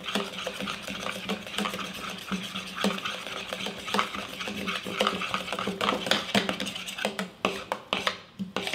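Wooden spoon stirring thick polenta in a stainless steel saucepan: a continuous run of scraping and soft knocks against the pot, as butter and grated cheese are worked in.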